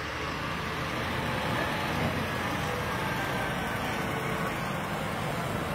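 Heavy flatbed truck's diesel engine running steadily as it drives past, over street traffic noise.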